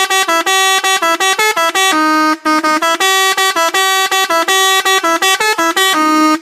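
Bus telolet horn, a multi-tone musical air horn, playing a fast tune of short notes in quick succession, with one brief break, then cutting off abruptly.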